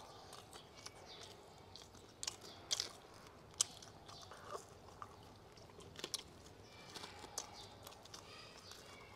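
Close-up chewing and biting of a crisp sesame flatbread (shaobing) filled with steak: mouth sounds with a few short, sharp crunches of the crust scattered through.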